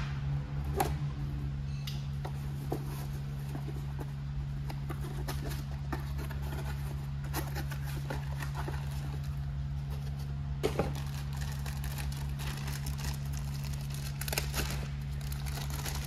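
A small cardboard box being slit open and unpacked: scattered clicks, scrapes and rustling of cardboard and packaging, over a steady low hum.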